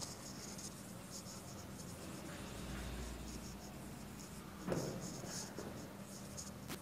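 Marker pen writing on a whiteboard: faint, scattered scratchy strokes, with one louder stroke a little before five seconds in.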